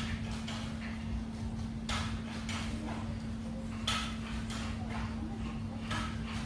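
Workout noise: knocks and thumps from feet landing during jumping jacks and a barbell being cleaned and pressed. A sharp knock comes about every two seconds, with a softer one about half a second after it, over a steady low hum.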